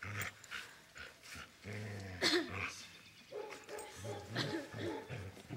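A dog vocalising in several short bouts, low growly barks and growls, while it jumps up at its handler.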